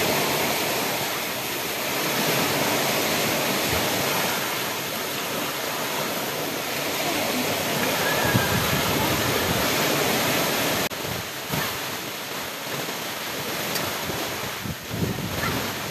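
Sea surf washing steadily onto a stony shore, mixed with wind noise. It becomes quieter suddenly about eleven seconds in.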